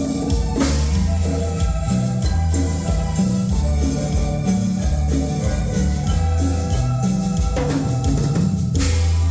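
Live band playing at a sound check: drum kit over a moving bass line, with no singing.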